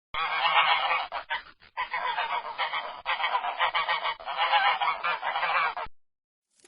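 Geese honking, many calls overlapping in a continuous clamour, with a brief break about a second and a half in, stopping abruptly about six seconds in.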